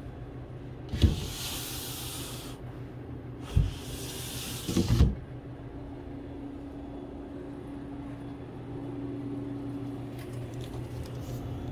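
Steady mechanical hum of a refrigerated ice cream dipping cabinet running, most likely its compressor. Twice a knock is followed by a hiss of about a second and a half, about a second in and again around three and a half seconds, with a few more knocks around five seconds.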